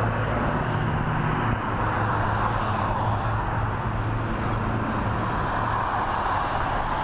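Steady hiss of a bicycle ride along wet roads, with a low steady hum of traffic underneath.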